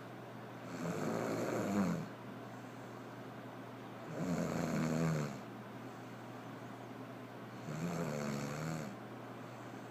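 Snoring: three long, buzzing snores, one about every three and a half seconds.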